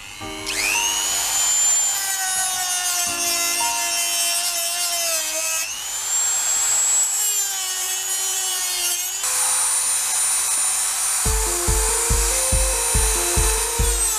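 Dremel 3000 rotary tool with a cut-off wheel cutting through white plastic waste pipe: a high motor whine spins up, sags briefly about halfway and rises again, then runs steady. Background music with a steady beat comes in near the end.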